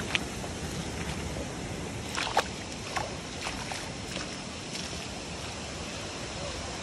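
Steady rush of shallow running water, with a few footsteps in sandals splashing through it; the sharpest splash comes about two and a half seconds in.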